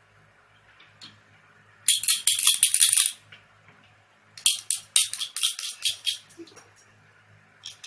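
Glass marble rattling inside a Ramune soda bottle as the bottle is shaken hard, in two bursts of quick rattling, each a second or so long.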